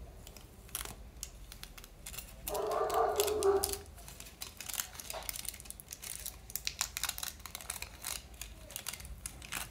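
Paper and tape crinkling, rustling and crackling as a small folded paper packet is peeled open and unfolded by hand, in many small irregular crackles. About two and a half seconds in, a louder, short pitched sound lasts about a second.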